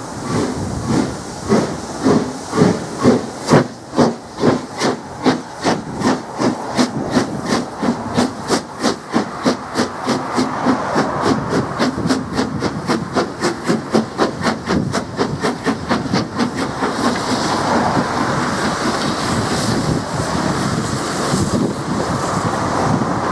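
Steam locomotive exhausting hard as it pulls a train away, its chuffs quickening from about two a second to about four a second. About two-thirds of the way through they give way to the steady rumble of coaches rolling past.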